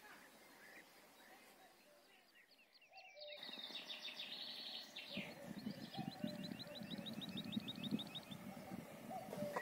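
Faint outdoor hush that cuts abruptly to birds chirping in quick repeated trills. From about halfway a cow chews close up, with irregular low crunching under the birdsong.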